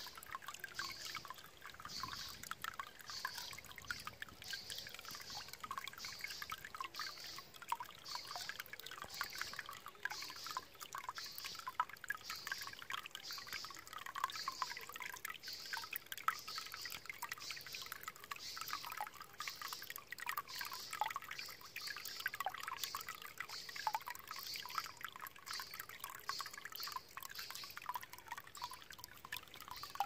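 Water welling up through a hole in a rusty metal plate and spilling over it, bubbling and trickling, with an even surge a little faster than once a second.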